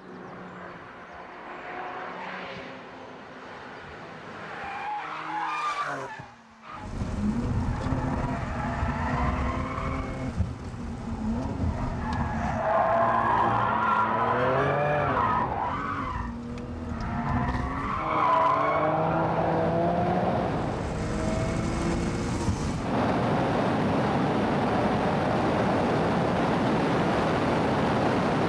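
RUF CTR Yellow Bird's twin-turbocharged flat-six driven hard, its pitch climbing and dropping repeatedly through the gears, with a short break about six seconds in. Near the end a steady loud rush of noise takes over.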